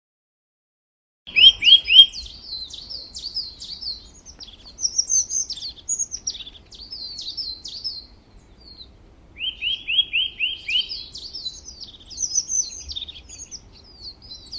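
Small songbirds chirping and twittering, starting about a second in: runs of quick falling chirps mixed with higher, faster twittering notes, with short pauses between phrases.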